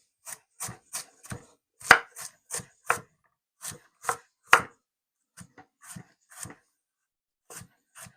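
Kitchen knife chopping crisp vegetables on a cutting board: a string of sharp, uneven knocks, about three a second, with short breaks between runs of cuts.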